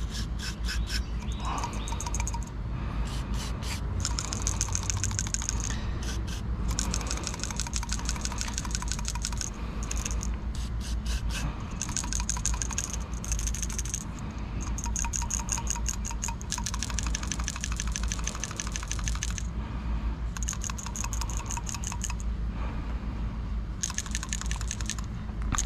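A PCV valve being shaken in repeated runs, its internal check valve rattling quickly; a free rattle like this shows the valve is moving and not stuck. Short hisses of aerosol mass airflow sensor cleaner sprayed into it come between the shakes.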